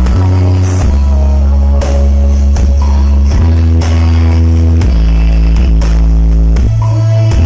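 Loud electronic dance music played through a big sound-system rig of eight subwoofers, with heavy held bass notes changing pitch about every second under a steady beat.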